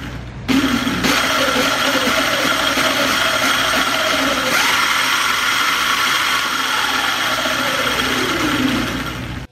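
Electric scooter's motor and chain drive spinning the raised rear wheel with no load: a steady electric whine and whir that starts about half a second in, its pitch falling over the last few seconds as the wheel winds down.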